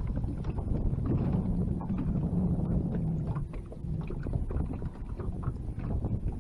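Wind rumbling on the microphone in an open fishing boat on the water, with scattered small clicks and knocks.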